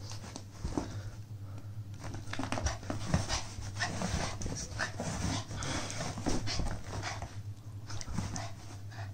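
A puppy panting in short, irregular breaths while tugging at a rubber chicken toy in a game of tug of war.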